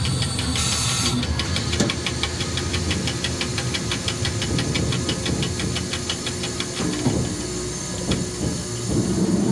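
Cab noise of an FS E.656 electric locomotive running slowly into a station: a steady hum with a rapid, even ticking clatter of several beats a second, and a brief hiss about a second in.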